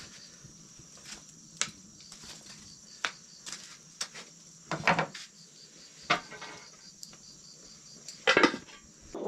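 Metal clinks and clanks of a ladle and an aluminium pot lid on a cooking pot, the loudest a clatter near the end as the lid is set on the pot. A steady high chirring of insects sounds behind.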